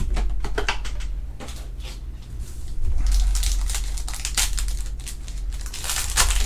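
Crinkling, tearing and rustling of trading card packaging and cards being opened and handled, a quick run of scratchy crinkles that is loudest about three seconds in and again near the end.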